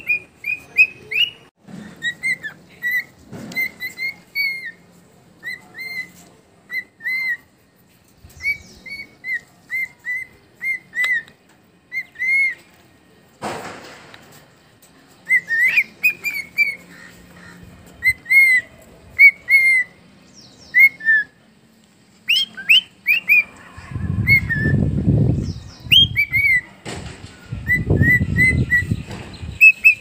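Cockatiel whistling its song: a long string of short rising-and-falling whistle notes, one or two a second, with a few higher notes mixed in. Bursts of low rumbling noise come in over the last few seconds.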